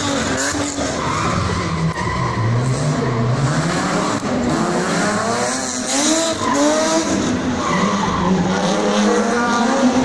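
Rear-wheel-drive race cars on track, their engines revving hard. Their pitch climbs and falls again and again as they accelerate and shift, with tyre noise underneath.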